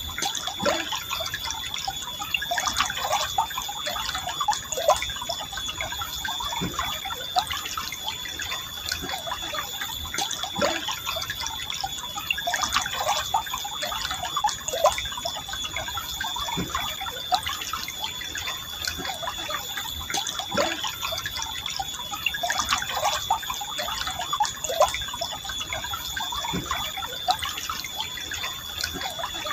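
River water flowing and gurgling, with many small bubbling plinks in the running water. A steady high-pitched tone sits above it.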